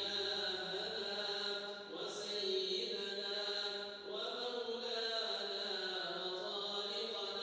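Quran recitation in a slow, melodic chant by a single voice, holding long notes that bend gently in pitch, with short breaks about two and four seconds in.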